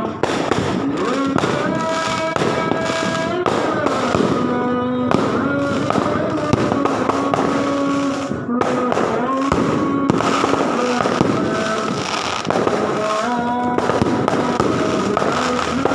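Fireworks crackling and popping densely and without a break, with a voice chanting in long held notes that slide from one pitch to the next underneath.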